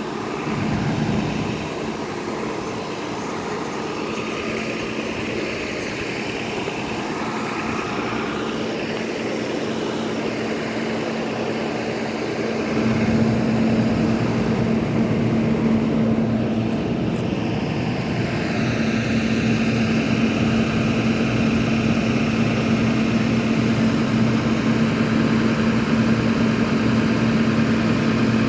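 A motor or engine running steadily. About thirteen seconds in it gets louder, with a steady low hum.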